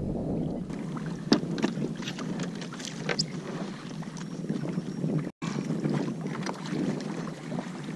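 Water lapping against a plastic fishing kayak with wind buffeting the microphone, and scattered knocks and clicks of things handled on the kayak, one sharp knock standing out about a second in. The sound cuts out for an instant a little past halfway.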